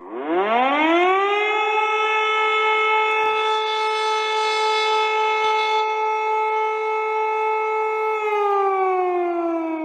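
Civil defense siren winding up from a low pitch to a steady high wail, holding it, then starting to wind down near the end.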